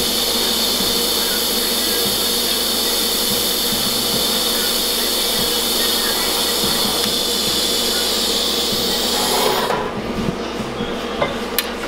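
TIG welding arc making a steady buzzing hiss as a fitting bung is welded onto an engine oil pan, cutting off near the end. A few light clicks follow.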